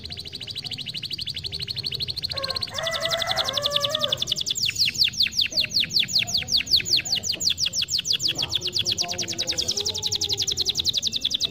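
Domestic canary singing a long trilled song. It opens with a very fast, high trill, breaks into a short lower warbled phrase about two and a half seconds in, then runs into a long rolling trill of rapidly repeated downward-sweeping notes, about ten a second.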